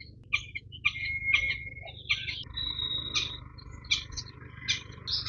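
Several birds chirping and calling in quick, irregular notes. About halfway through, a steady high buzzing tone joins them, over a low steady rumble.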